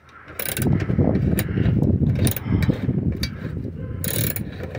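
Hand ratchet clicking in rapid repeated strokes as it backs out a bolt holding the underbody cover.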